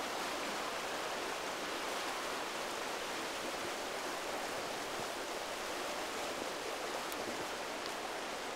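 Steady rush of running water from a stream, an even hiss with no breaks.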